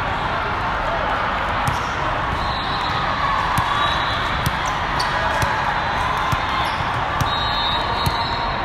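Large sports hall full of volleyball courts: a steady din of many voices, with frequent sharp slaps of volleyballs being hit and bounced all through, and a few short high squeaks near the end.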